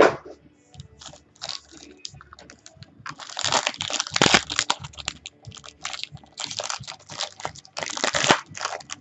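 Rustling, crinkling and light clicking as a trading card box and its wrapped pack are handled, torn open and the cards shuffled out by hand, busiest from about three seconds in to near the end.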